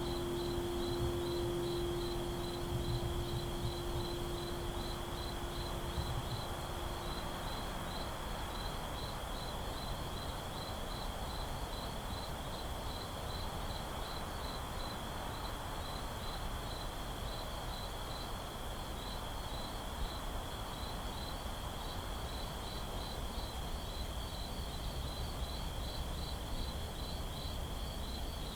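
Night ambience of crickets chirping steadily in a quick, even pulse over a soft background hiss. Low lingering harp notes fade out in the first several seconds.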